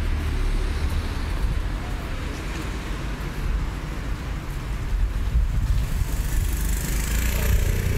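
A car moving slowly past close by, over a steady low rumble of street traffic. A hiss comes up near the end.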